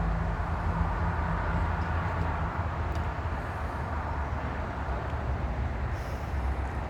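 Steady low mechanical rumble with a hiss over it, like a running engine or machine, with a faint tick or two.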